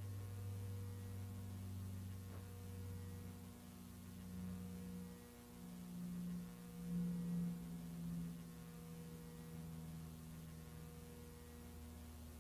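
Low steady hum of a few held tones. A slightly higher tone swells in the middle and is loudest about seven seconds in, then fades back.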